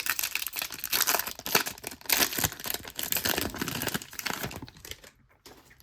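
Foil wrapper of a baseball card pack being torn open and crinkled, a dense crackling that dies away about five seconds in.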